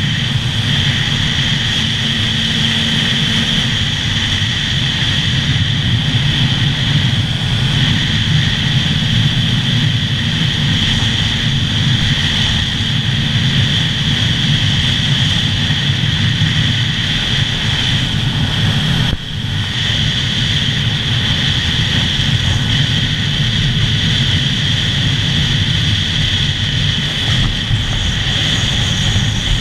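Stock Yamaha R6 inline-four sport bike cruising, its engine mixed with steady wind rush on a helmet-mounted camera. There is a brief drop in loudness about nineteen seconds in.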